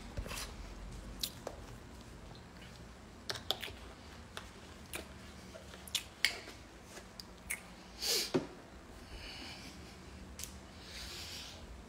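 Handling noise from a phone filming in a quiet room: scattered small clicks and knocks, with a short breath about eight seconds in and a fainter one near the end.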